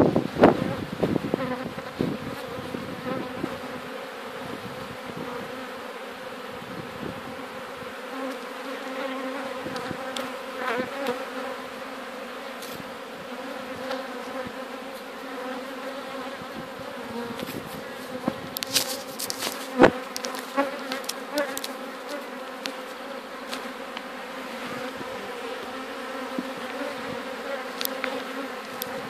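A swarm of honeybees humming steadily, in a drone of several even tones, with bees buzzing close past the microphone. A few sharp knocks stand out about two-thirds of the way through.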